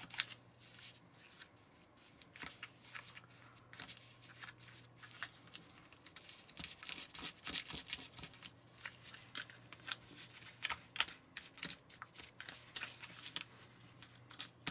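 Fingers kneading and pressing crumbly powdered waffle-mix dough in a small plastic tray: a long run of faint, quick, irregular scratchy clicks as fingertips and dough rub and tap against the thin plastic.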